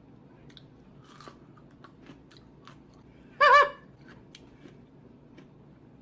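Close-up crunching and chewing of crisp pickled green beans, heard as scattered small crunches. About three and a half seconds in comes one brief, loud, high-pitched sound with a wavering pitch.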